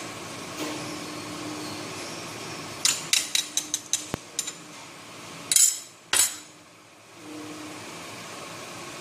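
Kitchen handling noises: a quick run of about eight light knocks that fade as they go, then two short, loud, hissy bursts about half a second apart, over a steady low hum.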